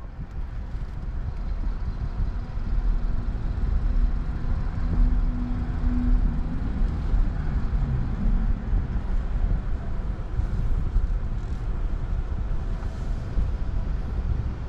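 Steady low rumble of an electric car rolling slowly forward, mostly tyre and road noise, with a faint hum in the middle for a few seconds.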